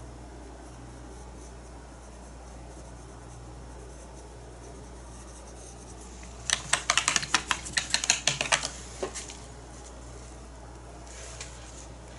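A quick flurry of small sharp clicks and scratches, lasting about two seconds a little past the middle, from painting tools being handled, over a steady low hum.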